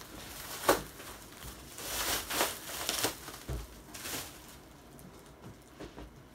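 Loose plastic packaging crinkling as it is pushed aside while a taped cardboard box is handled and shifted on a table, with irregular rustles, a few sharp clicks and soft knocks.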